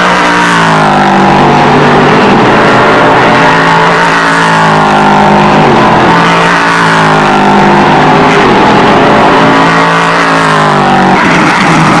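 Le Mans prototype race car engines running hard through a corner, the pitch dropping and climbing again several times as they shift down and accelerate.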